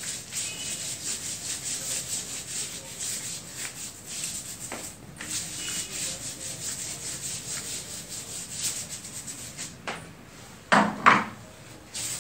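Marker writing being wiped off a whiteboard with an eraser: quick back-and-forth rubbing strokes, with a short break partway through. Near the end, two louder knocks.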